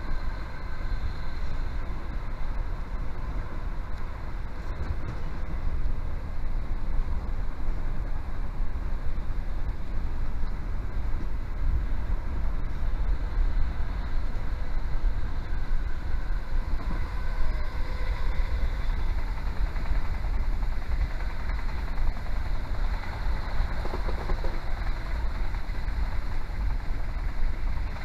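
Steady rumble of a diesel passenger train running along the track, as heard from inside the carriage, with faint whining tones above it.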